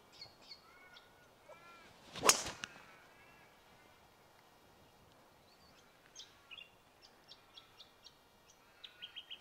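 A golf club striking the ball on a tee shot: one sharp crack about two seconds in. Birds chirp and twitter throughout, with a quick run of high chirps near the end.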